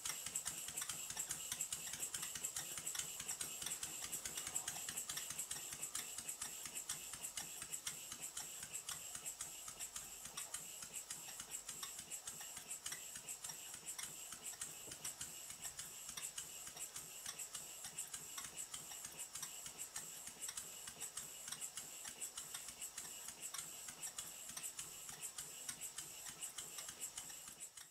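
Stuart S50 model horizontal steam engine running fast on compressed air: a rapid, even patter of exhaust puffs and clicking motion work over a steady hiss.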